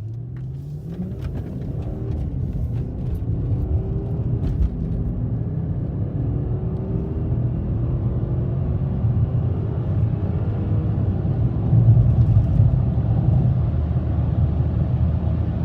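2005 Volkswagen Touareg accelerating hard: the engine rises in pitch several times through gear changes under a steady low rumble that grows louder. No driveshaft thumping is heard, with the support bearing just repaired.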